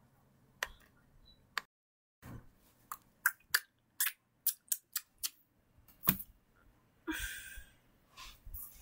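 Handling noise as plush toys are moved about: a series of sharp clicks and taps, mostly between about two and six seconds in, and a short rustle about seven seconds in. The sound cuts out completely for about half a second near two seconds in.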